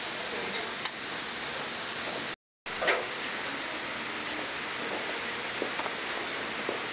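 Steady hiss of tteokgalbi patties sizzling on a grill, with a sharp click about a second in. The sound cuts out for a moment about two and a half seconds in, then the sizzling carries on.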